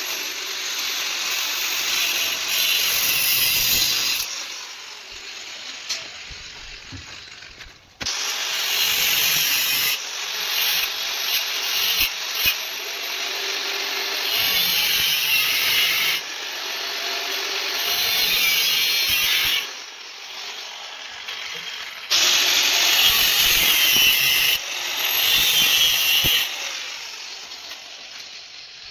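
Handheld power tool working steel in long passes of several seconds, with quieter gaps between them.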